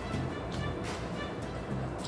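Background music playing, with one short crisp noise just under a second in.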